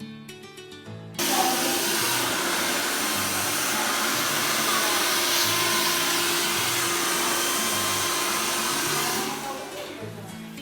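Handheld hair dryer switched on about a second in and blowing steadily with a hum, then switched off shortly before the end. Guitar music plays underneath.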